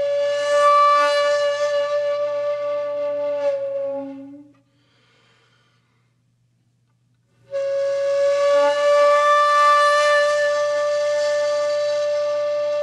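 Soundtrack music: a long, steady woodwind note with a lower tone held beneath it, breaking off about four and a half seconds in. After about three seconds of near silence another long held note begins.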